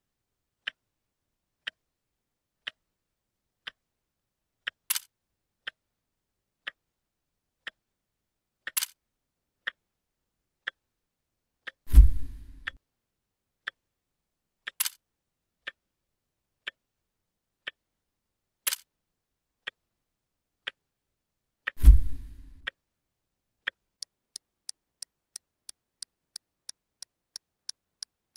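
Clock-ticking sound effect, one tick a second, with a few sharper clicks and two heavy thuds about ten seconds apart, the loudest sounds here. Near the end the ticking speeds up to about two and a half ticks a second, marking fast-forward.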